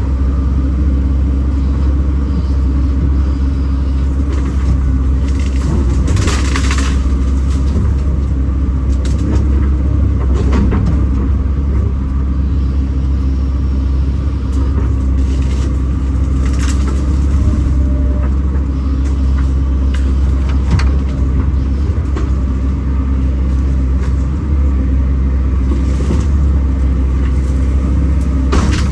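Kobelco SK210 excavator's diesel engine running steadily with a deep drone while the machine works, with a few short knocks or cracks scattered through.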